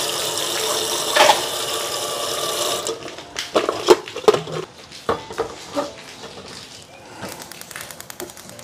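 Water running from a kitchen tap, shut off about three seconds in, followed by several knocks and clatters of kitchenware being handled.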